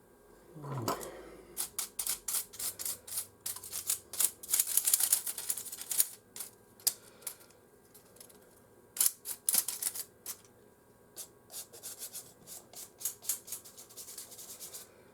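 Small hard parts of a PlayStation 4 disc drive being handled and slid apart: a short scrape falling in pitch about a second in, then many sharp irregular clicks and rattles, densest around four to six seconds in and lighter near the end.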